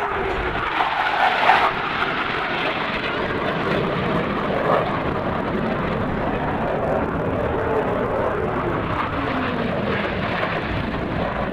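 Airplane flying past, a steady engine rush with a tone that slowly falls in pitch as it passes.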